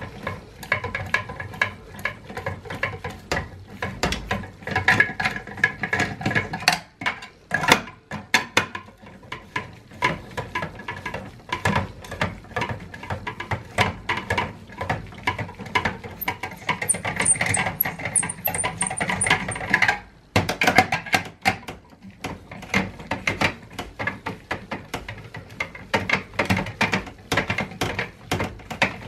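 Phillips screwdriver working a screw in the metal chassis of a Dell Precision T5500 workstation: dense, irregular clicking and scraping of the tip in the screw head, with brief pauses about 8 and 20 seconds in.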